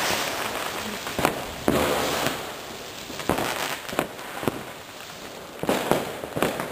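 A ground firework fountain hissing as it sprays sparks, thinning out near the end. Sharp firecracker bangs go off about eight times over it, the loudest a second or two in.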